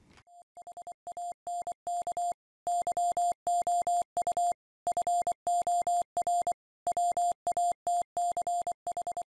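Morse code sent as a single steady, mid-pitched beep keyed on and off in short and long elements. It fades in over about the first second.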